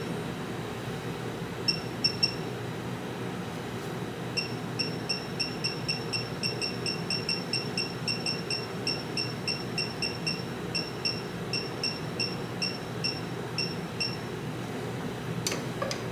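Digital torque wrench beeping once for each button press as its target setting is dialled up from 50 to 75. A few short high beeps come at first, then a steady run of about three a second for some ten seconds. A couple of sharp knocks come near the end.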